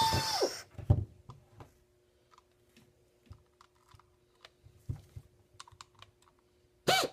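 Rivet King RK-50SP pneumatic rivnut tool: its air motor runs with a hiss and a steady whine that winds down about half a second in. Then come light clicks and taps of the tool and its mandrel being handled, and near the end a short burst as the motor spins up again with a rising whine.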